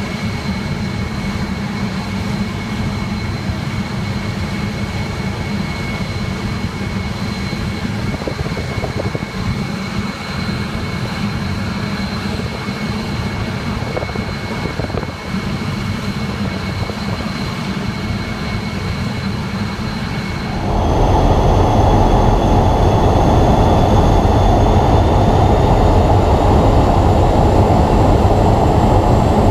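Rolls-Royce Derwent 8 centrifugal-flow turbojet running: a steady high whine over a deep rumble. About two-thirds of the way through it becomes suddenly louder and fuller, and the whine rises slowly as the engine speeds up.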